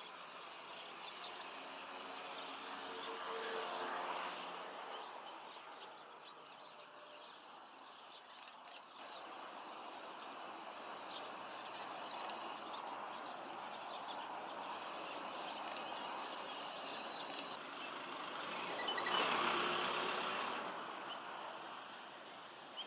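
Two vehicles passing by, each rising and fading away, the first about four seconds in and the louder one near the end, over a steady outdoor background hum.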